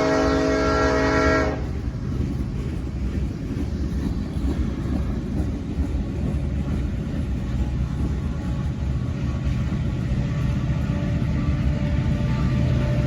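Diesel locomotive air horn sounding a multi-note chord, cutting off suddenly about a second and a half in. After that the train's low rumble carries on steadily.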